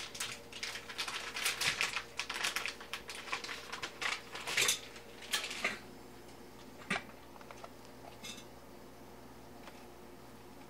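Rapid clicking and rustling of handling as a piece of bacon is laid on a frozen pizza sitting on its cardboard on the stovetop, dense for about the first six seconds, then a few single clicks.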